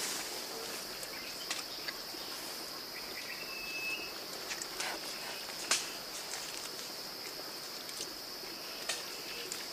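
Steady high-pitched drone of forest insects, with scattered light clicks and snaps and one brief whistled note about three and a half seconds in.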